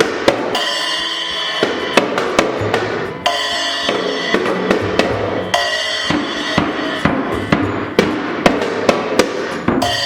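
Background music with a steady drum-kit beat under sustained melodic instruments.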